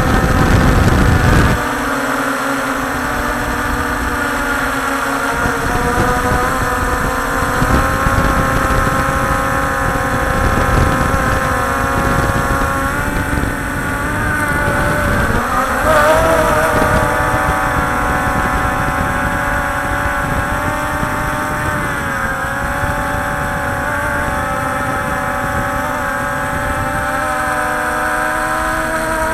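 Small quadcopter drone's electric motors and propellers whining steadily, the pitch wavering up and down as it manoeuvres. There is a low rumble in the first second or so.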